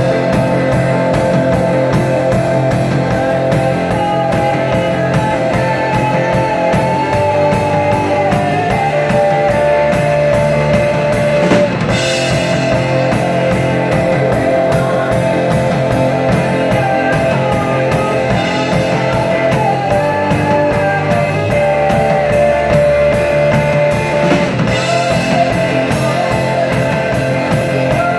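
Live rock band playing: drum kit keeping a steady, fast beat under electric bass and keyboard, with sustained notes carried over the rhythm.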